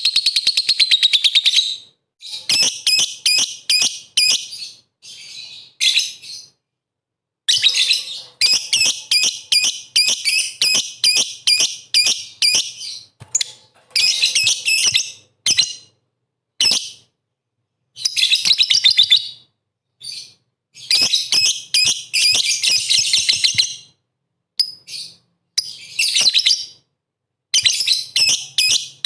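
Lovebird singing in long bursts of rapid, high-pitched chattering trills, broken by short pauses. This is the continuous 'gacor' song used as a lure recording to set other lovebirds singing.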